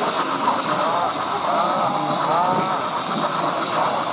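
Steady hubbub of many voices in a crowded hall, with the running noise of an HO scale model train on its track beneath it.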